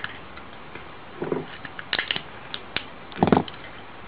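Small clicks and scrapes of plastic and metal as a lighter is pulled apart by hand, with two duller knocks, the louder one about three seconds in.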